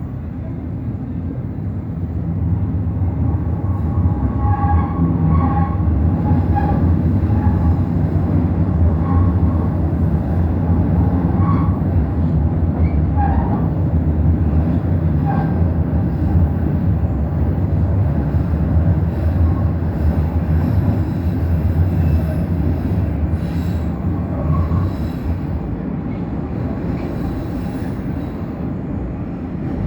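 Toronto TTC subway train running through the tunnel, heard from inside the car: a loud, steady low rumble, with brief high-pitched wheel squeals scattered through the first half.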